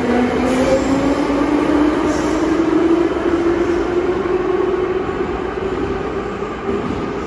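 81-718/719 metro train under thyristor-pulse traction control, its whine climbing slowly and steadily in pitch over a running rumble, typical of the train accelerating; the sound grows fainter toward the end.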